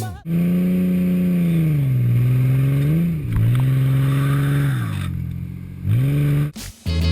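An engine running, its pitch falling and rising twice as it slows and speeds up, then cutting off abruptly.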